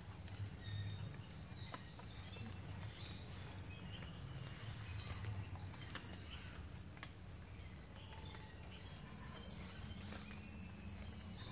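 Insects droning steadily in a high, even hiss, with short high chirps repeating every half second or so over a low rumble.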